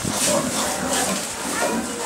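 Newborn piglets calling with short, high squeals, many in quick succession.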